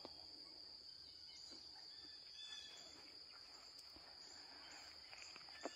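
Near silence outdoors: a faint, steady high-pitched insect trill, with a few faint bird chirps.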